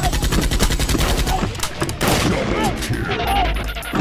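Rapid automatic gunfire, many shots a second in a continuous stream.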